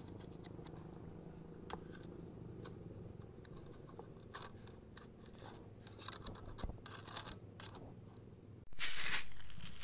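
Light metallic clicks and short scrapes as a screwdriver and small parts are worked around a Honda Revo's cam sprocket at the cylinder head, over a low steady hum. The clicks come scattered, thicker in the second half, and near the end a loud rush of noise lasts about a second.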